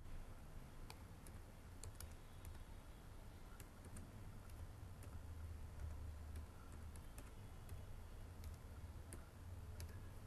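Computer keyboard keys typed in faint, irregular clicks, over a low steady hum.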